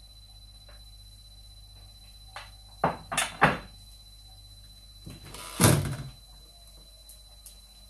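A few sharp knocks and clatters of kitchen things being handled about three seconds in, then a louder, heavier clunk about two and a half seconds later.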